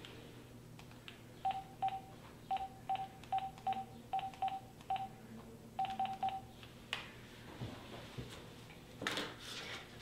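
Mobile phone keypad being dialled: over a dozen short beeps at one pitch, each with a soft tap, in quick irregular groups as a number is keyed in. A single click follows about a second after the last beep, then a short rustle near the end.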